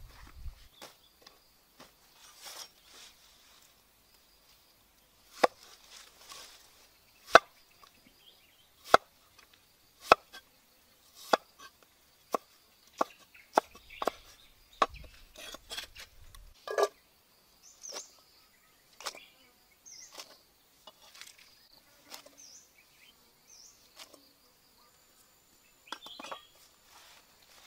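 A knife chopping a firm white vegetable stem on a wooden stump chopping block: a dozen or so sharp single chops at uneven intervals, coming closer together in the middle, with faint high chirps from insects or birds later on.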